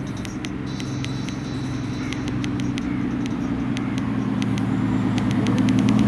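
Small plastic clicks of a VW Golf flip key fob's buttons pressed over and over, a few a second: the key is being clicked out of range of the car to knock it out of sync. Under them runs the steady hum of a car engine, growing louder.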